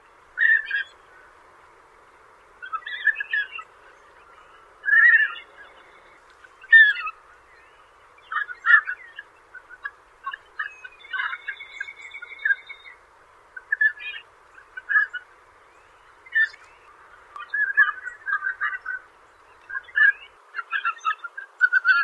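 Canvasback duck calls: short calls repeated at irregular intervals, coming in quicker runs in the second half, over a faint steady hiss.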